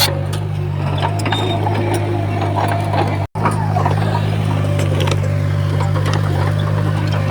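Heavy earthmoving machinery's diesel engine running steadily, with scattered metallic clanks and rattles. It breaks off for an instant about three seconds in.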